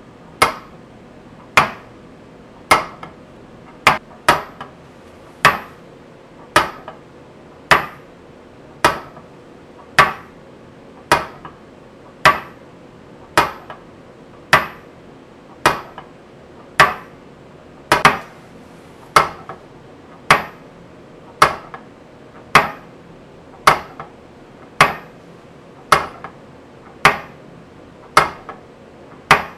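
Union Switch & Signal FN-16 DC railroad crossing flasher relay running, its armature swinging over and its contacts snapping with a sharp metallic click about once a second, each with a short ring. This is the relay's steady beat as it alternates the two crossing lights.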